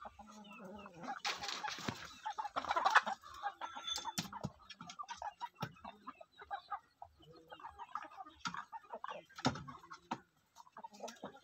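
Chickens clucking in a pen, with a louder outburst of calls about a second in that lasts around two seconds, then scattered short clucks.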